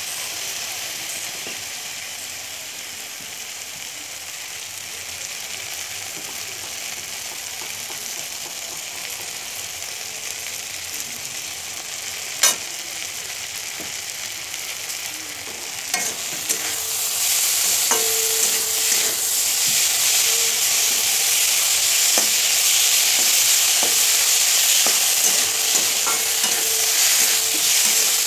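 Shredded cabbage and onion sizzling in hot oil in a metal wok, with one sharp click about halfway through. Past the middle the sizzle gets louder as a metal spatula stirs and scrapes the vegetables around the pan.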